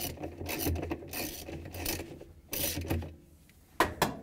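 Ratchet wrench on a long extension with a 10 mm socket backing out the washer's pulsator bolt: repeated strokes of ratcheting clicks, about two a second, that stop about three seconds in. One sharp click follows near the end.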